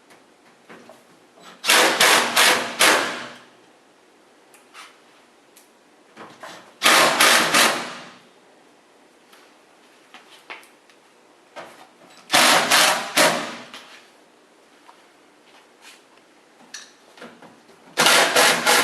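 Power screwdriver driving screws through the fabric side panel, four short bursts of fast rattling run about five seconds apart, with small handling clicks between them.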